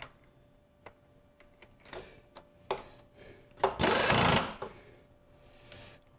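Scattered light clicks and knocks of objects being handled, with a rush of noise lasting about a second a little after the middle.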